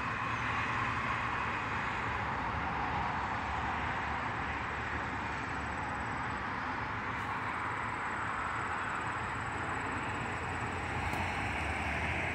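Steady distant roar of an Airbus A330-900neo's Rolls-Royce Trent 7000 engines at takeoff power, mixed with highway traffic, growing a little louder near the end.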